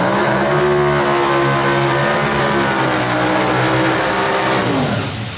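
A drag-racing Ford Falcon's engine held at high revs through a burnout, its rear tyres spinning. The revs climb quickly at the start, hold steady, and drop away about a second before the end as the throttle is released.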